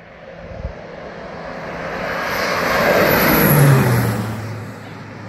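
Radio-controlled model airplane making a low pass overhead: its engine grows louder to a peak about three and a half seconds in, the pitch drops as it goes by, and then it fades.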